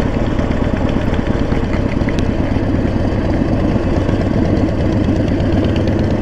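Harley-Davidson Sportster 1200's air-cooled V-twin engine running steadily.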